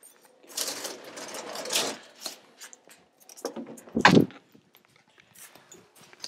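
Handling noise from a handheld camera being moved about: rustling for a second or so, scattered clicks, and one short thump about four seconds in.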